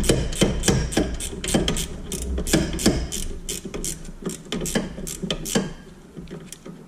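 A ratchet wrench clicking at about four clicks a second as a loosened rear brake caliper bracket bolt is backed out. The clicks grow fainter and stop about five and a half seconds in, over a low steady hum.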